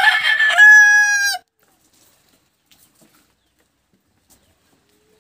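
A rooster crowing, the call already under way and ending on a long held note that falls off about a second and a half in; after that only a few faint ticks.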